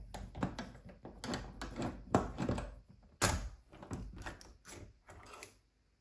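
Irregular clicks, knocks and rattles of a metal door lever handle being worked loose with a screwdriver and pulled off the door, with two louder knocks about two and three seconds in.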